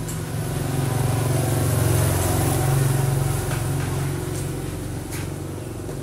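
Motorbike driving past on the street: its engine grows louder, is loudest around two to three seconds in, then fades away. A couple of short clicks come later.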